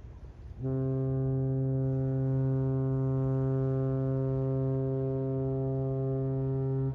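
Horn of the cruise ship Westerdam sounding one long, steady, low blast of about six seconds, which cuts off sharply: a departure signal as the ship leaves port.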